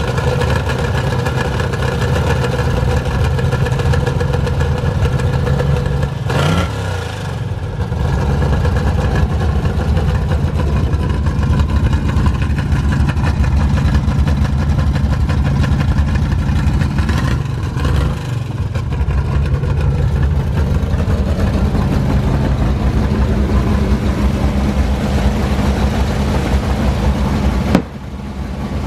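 Carbureted V8 of a 1970s drag car running at idle, with two brief changes in revs, about six and seventeen seconds in. Near the end it drops in level.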